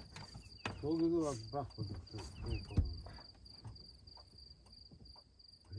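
Cricket chirping in a steady, high-pitched pulsing trill, with a few low spoken words about a second in and again around two and a half seconds.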